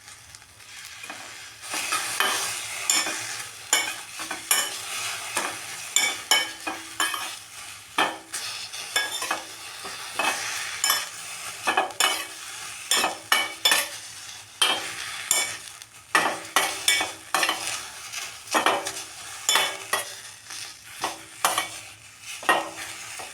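A spatula stirring and scraping tulsi and Indian borage leaves around a hot pan on low heat, with a light sizzle, as the leaves are sautéed until they wilt. Quick, irregular scraping strokes start about a second and a half in and keep on.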